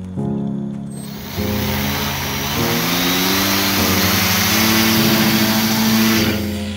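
A small RC plane's electric motor and propeller spin up, with a rising pitch and a loud rush of air, as it is held for a hand launch. The rush cuts off shortly before the end. Background music with steady chords plays throughout.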